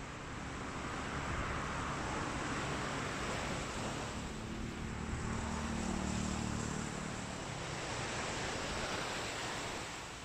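Sea waves washing onto a beach, the surf swelling and easing, with wind on the microphone. A low motor hum joins the surf in the middle and fades out again.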